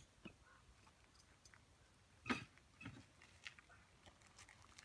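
Faint crunching footsteps on a gravel dirt road, irregular, with one louder crunch a little past halfway.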